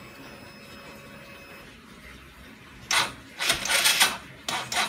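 Honda Verza's electric starter cranking the single-cylinder engine in short, sluggish grinding bursts starting about three seconds in, without the engine catching: the battery is too weak to turn it over properly.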